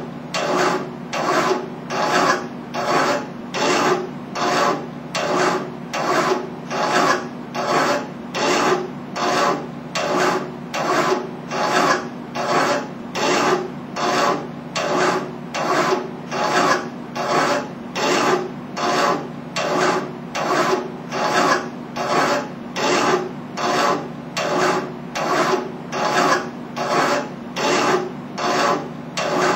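Hand file rasping on metal clamped in a bench vise, in steady back-and-forth strokes a little over one a second.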